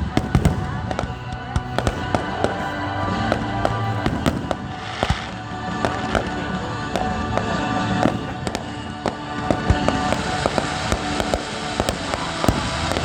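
Fireworks going off in quick, irregular bangs and crackles, with music playing underneath.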